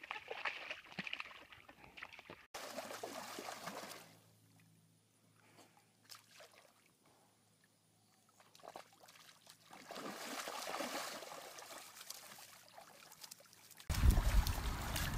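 Muddy water sloshing and splashing as animals wallow and roll in mud puddles. The sound drops very low in the middle and turns suddenly louder near the end.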